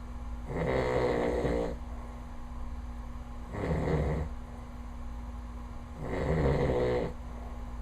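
A man snoring loudly in his sleep: three snores, each about a second long, at a steady rhythm roughly every two and a half to three seconds.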